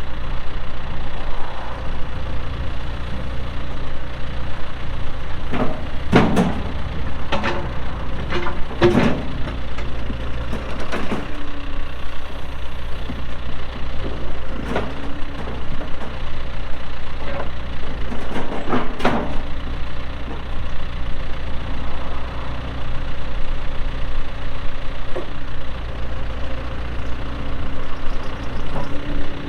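2015 John Deere 410L backhoe loader's diesel engine running steadily while the machine is worked, with a run of sharp clanks and knocks between about six and nineteen seconds in.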